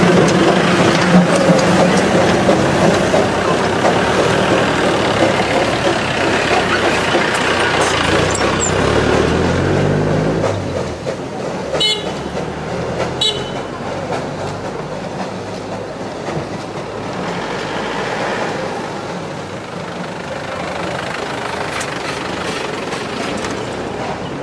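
A steady rushing hiss close beside a Darjeeling Himalayan Railway B-class steam locomotive, with an engine revving up in pitch about eight to ten seconds in. The sound then drops to quieter street and traffic noise, with two short high toots about a second apart.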